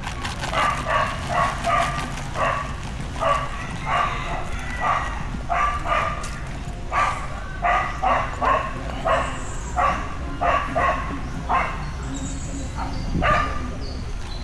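A dog barking over and over, about two barks a second, with a short pause before a last bark near the end.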